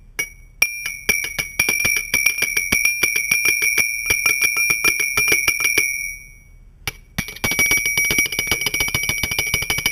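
Metal spoon stirring tea in a ceramic mug, striking the sides in rapid ringing clinks, about eight to ten a second. The clinking breaks off for about a second past the middle, then starts again.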